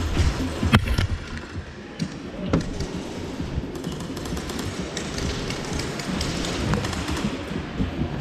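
Scattered knocks and clicks, the sharpest about a second in, over a steady background din in a large warehouse hall.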